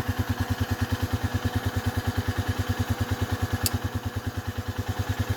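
A vehicle engine idling steadily, with an even low chug of about ten beats a second.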